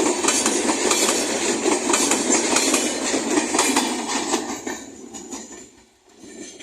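LHB passenger coaches of an express train passing at speed without stopping, their wheels clacking rhythmically over rail joints amid loud rolling noise. About four seconds in the sound begins to fade, dying away almost completely as the end of the train passes and recedes.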